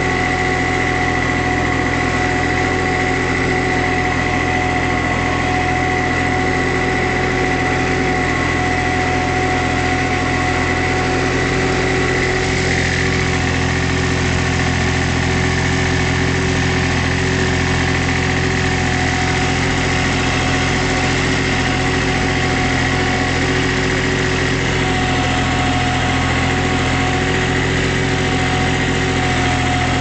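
Hinomoto two-wheel-drive compact tractor's three-cylinder engine running steadily under the load of pulling a single-furrow plough, heard from the driver's seat.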